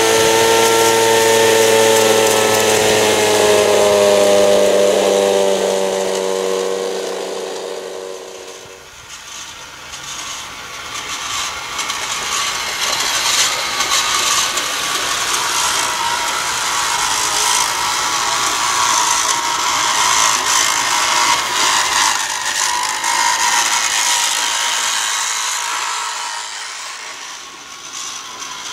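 The electric motor of a garden-railway rotary snowplough whines with several overtones, sinks slowly in pitch and stops about eight seconds in, its batteries running flat. Then comes a steady, rough scraping and rattling of a model train working a plough along the snowy track.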